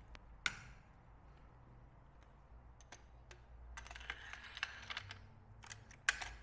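Metal parts of a DSS PZD556 light machine gun clicking and rattling as they are handled during reassembly: a sharp click about half a second in, a cluster of small clicks about four seconds in, and another sharp click near the end.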